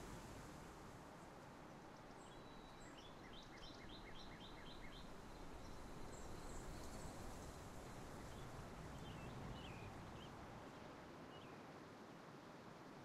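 Faint, steady outdoor background hiss with distant bird chirps: a quick run of about seven short high notes a few seconds in, then a few scattered single chirps.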